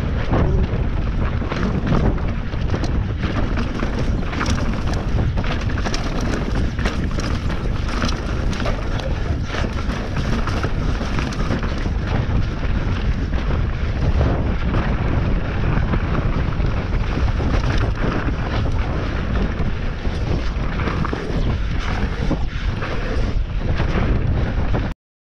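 Mountain bike descending a dry, rocky dirt trail: wind buffeting the microphone over the noise of the tyres on dirt and stones, with frequent sharp clattering knocks as the bike rattles over rocks and bumps. The sound cuts off abruptly near the end.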